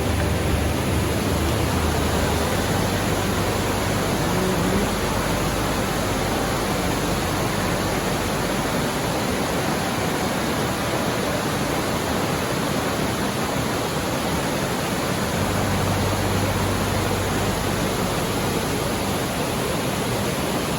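Steady rushing of falling and running water from Dukes Creek and its waterfall, a constant dense hiss with no breaks.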